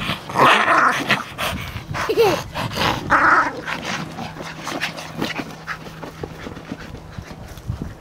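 Yorkshire terriers growling and yapping in excited bursts over the first three seconds or so, then quieter, with scattered light knocks as they paw and push an inflatable ball.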